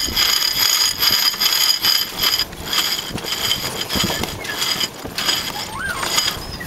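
Sailboat winch ratcheting as its handle is cranked to hoist a sail: a rapid metallic clicking of the pawls that comes in spurts, with short pauses between strokes.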